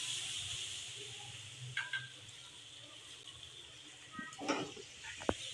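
Beef korma sizzling gently in an aluminium pot while a wooden spoon stirs it. The steady hiss fades slowly, and there are a few scrapes and knocks of the spoon against the pot, mostly near the end.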